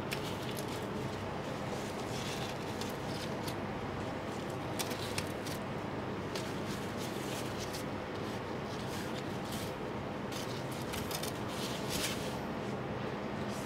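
Light scattered clicks and taps of baked scones being set down on a perforated metal baking tray by gloved hands, over a steady low kitchen hum.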